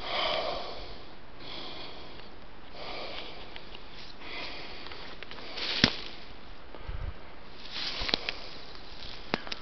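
A person breathing heavily and audibly close to the microphone, a breath about every second and a half, out of breath after a steep uphill climb. A few light clicks of handling noise, the sharpest about six seconds in.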